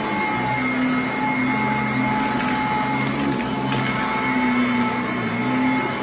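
Sanitaire commercial upright vacuum running steadily over carpet while picking up heavy debris, a motor whine over a low hum that shifts slightly with the push-and-pull strokes. A few faint clicks come about halfway through.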